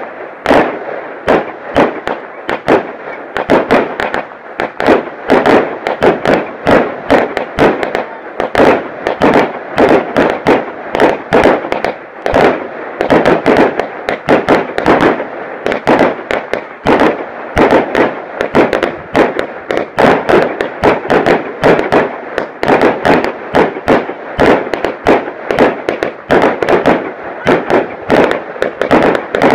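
Gold Dragon 'Chimera' firework cake (490 g, category F2) firing, starting suddenly: a dense, unbroken run of sharp cracks and bangs, many a second, from shots bursting into green stars and crackling gold trails.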